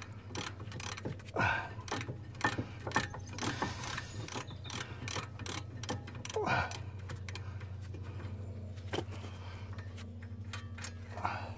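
Irregular metal clicks and clinks as a car's front brake caliper and carrier are handled at the hub, then a fast, even ticking in the second half, with a steady low hum underneath.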